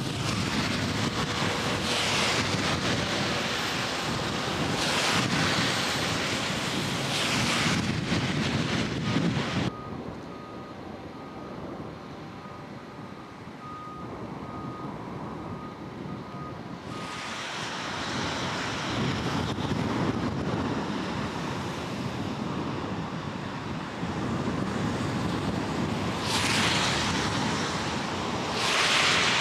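Wind buffeting the microphone in strong gusts over a steady rush of fast-flowing river water. The noise drops suddenly about ten seconds in, with a faint steady whine, and rises again about seven seconds later.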